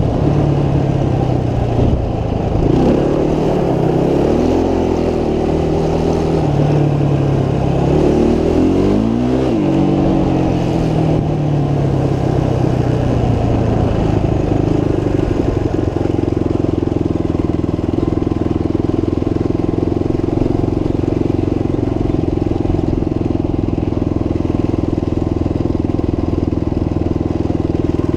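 Motorcycle engine running under way: it revs up and down several times in the first ten seconds or so, then settles to a steady pitch for the rest.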